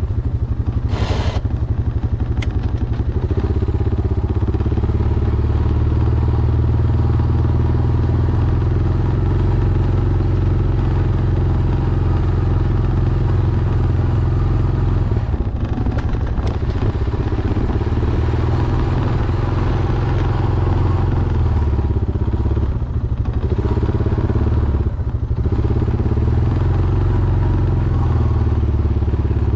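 Honda Foreman ATV's single-cylinder four-stroke engine running steadily under load while plowing snow, with a short hiss about a second in.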